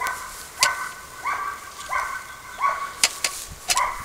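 A dog barking in short, evenly spaced barks, about every two-thirds of a second, with a couple of sharp clicks among them.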